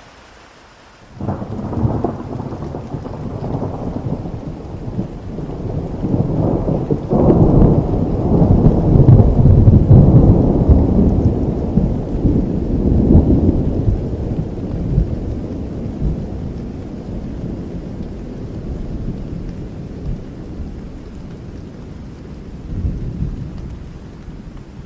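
Thunder rumbling over steady rain: it breaks in suddenly about a second in, grows to its loudest near the middle, then slowly dies away.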